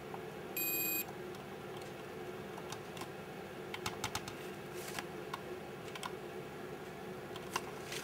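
A digital multimeter's continuity buzzer gives one short, high beep about half a second in, which means the circuit between the probe tips is closed. Faint scattered clicks follow as the probe tips are moved and tapped on the microwave touch panel's printed membrane traces.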